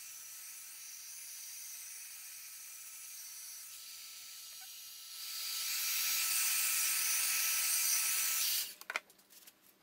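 Heat gun blowing hot air in a steady hiss over freshly spread resin to pop its bubbles. It gets louder about five seconds in and cuts off sharply near the end.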